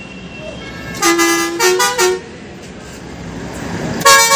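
Musical vehicle horn tooting a short run of notes at shifting pitch. It sounds in two bursts, one about a second in lasting about a second and another near the end.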